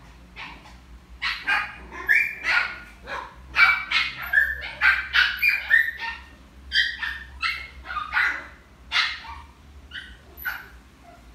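A dog barking in a long run of short, high-pitched yips, loudest in the middle and tailing off near the end.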